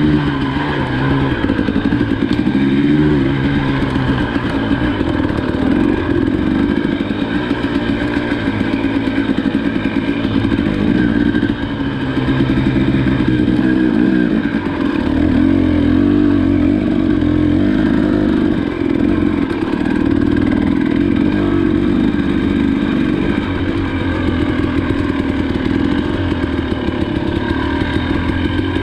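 Motorcycle engine running steadily under way, its pitch rising and falling with the throttle.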